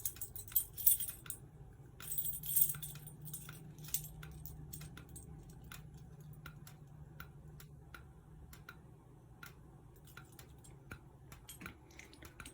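A bunch of keys jangling twice in the first three seconds. After that come faint, evenly spaced ticks, about two a second, over a low steady hum: typical of fire alarm strobes flashing with their horns silenced.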